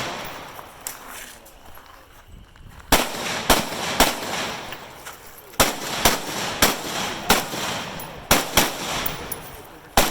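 Rifle shots from several shooters on a firing line: about a dozen sharp reports at uneven intervals, some close together, each followed by a brief fading echo.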